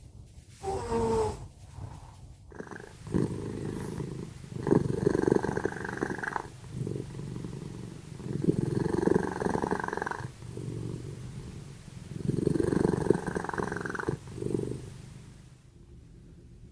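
Domestic cat snoring in its sleep, with a loud snore on each breath about every four seconds and quieter breaths between. A short sound comes about a second in, before the steady rhythm starts.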